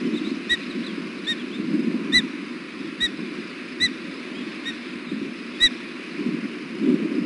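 Osprey giving a series of short, high, pitched chirps, about one a second, seven in all. A steady low rumble runs underneath.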